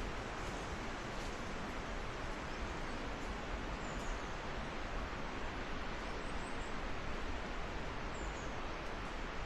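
Tree leaves rustling steadily in the wind, with a stream running beneath and a low rumble of wind on the microphone. A few faint, short, high bird chirps come through about four, six and a half and eight seconds in.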